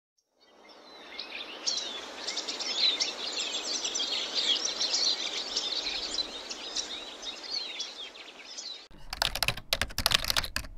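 Bird chirps over a steady outdoor hiss, fading in over the first second or two. About nine seconds in it cuts abruptly to a quick run of keyboard typing clicks, a typing sound effect.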